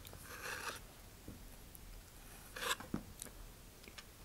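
Faint rubbing and rustling of hands handling a small model rocket, with a couple of light taps. The rustles come at the start and again about two and a half seconds in.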